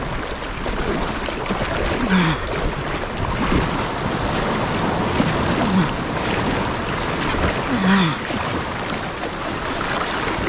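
A boat under way at sea: a steady rush of wind and water noise, with a few short falling hums from a voice.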